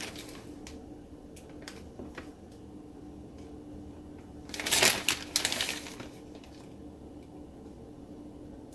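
Light clicks and taps of food handling, then about five seconds in a loud rustle of a plastic bag of shredded cheese being handled, over a faint steady hum.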